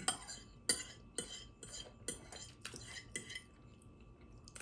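Cutlery clinking and scraping against a plate in about eight short strokes, close together over the first three and a half seconds, with one more click at the end, as food is scooped off the plate.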